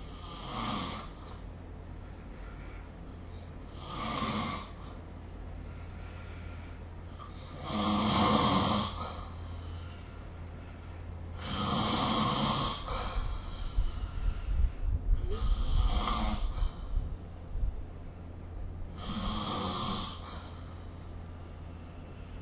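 A sleeping person snoring: six snores at a slow, even pace, about four seconds apart and each about a second long, over a steady low hum. Midway through, a low uneven rumble rises under the snoring for a few seconds.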